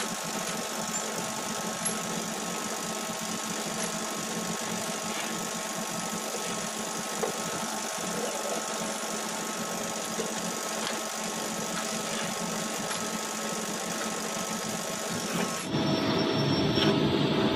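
CNC lathe turning a bar: steady spindle and cutting noise with a few faint steady high tones. Near the end the sound switches suddenly to a louder, lower machine rumble.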